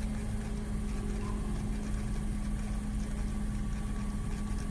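Steady hum of a 2006 Toyota Sienna idling, with its 3.3-litre V6 and heater blower running, holding one constant tone over a low rumble.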